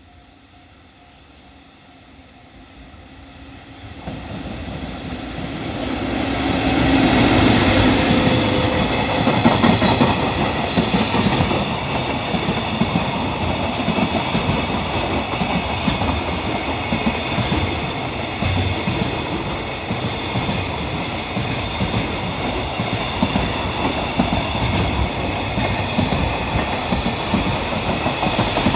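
EF65 electric locomotive hauling a freight train, growing louder over the first seven seconds or so as it arrives. A long, steady run of freight wagons then rolls past, their wheels rumbling on the rails.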